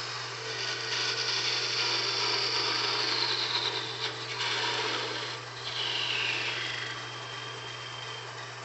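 Wood lathe running with a parting tool cutting into a small spinning walnut piece to part it off: a high whine from the cut that slowly falls in pitch, breaks off about four seconds in and comes back fainter near six seconds, over the steady hum of the lathe motor.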